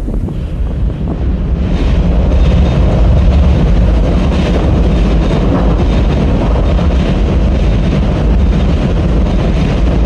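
Strong wind buffeting a phone's microphone: a loud, steady low rumble under a rushing hiss, growing louder about two seconds in.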